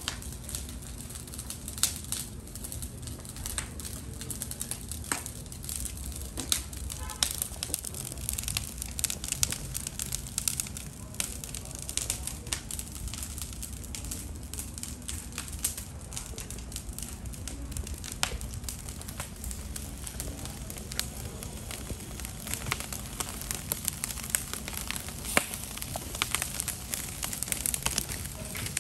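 Charcoal fire under kebab skewers crackling, with sharp pops scattered irregularly over a low steady hum.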